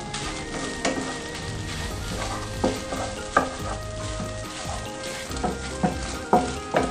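Scrambled eggs sizzling in hot oil in a non-stick wok as a wooden spatula stirs and breaks them up, scraping across the pan and knocking against it half a dozen times.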